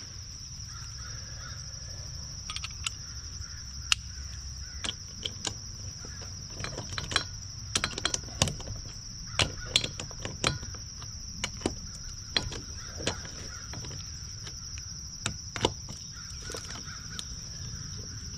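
Irregular sharp metallic clicks and knocks, one to three a second, of a socket wrench working the lug nuts on a utility vehicle's wheel. A steady high insect drone runs underneath.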